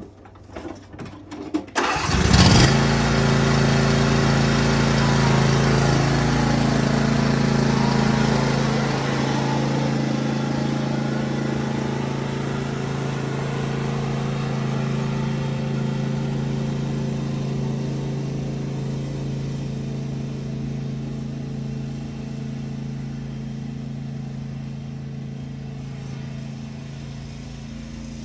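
John Deere E170 lawn tractor engine starting about two seconds in after a few clicks, then running steadily, gradually getting quieter.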